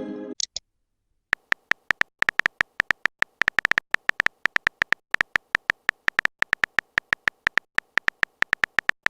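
Phone keyboard typing sounds: a long run of short, irregular key-tap clicks, several a second, as a text message is typed out. The clicks begin about a second in, after the tail of a short chirping tone.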